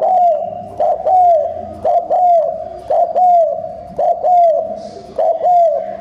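Spotted dove cooing fast, a short lead-in note followed by a longer arched, falling coo, repeated about once a second.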